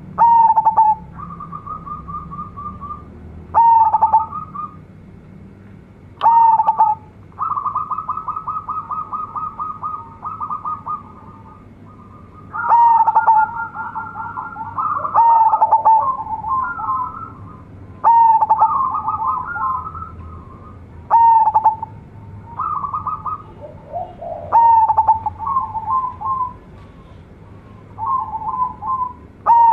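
A zebra dove (perkutut) singing actively in full voice. About every three seconds it gives a loud cooing note that drops in pitch, each followed by a fast run of short staccato coos.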